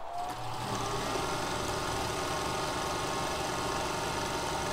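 Unimat SL-1000 micro lathe, driven through a belt by a 150-watt DC motor, spinning up with a rising whine over about a second. It then runs steadily at about 2100 rpm.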